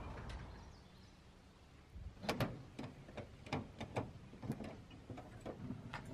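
A quick run of sharp metal clicks and clanks, about ten over four seconds: a Masterbuilt propane smoker's door and latch being worked while metal tongs and a wire-rack tray are handled beside it. Music fades out just before the clicks begin.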